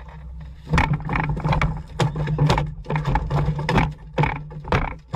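Boat's outboard motor running steadily at idle, under a rapid series of loud, rough bursts of noise, about three a second, starting about a second in.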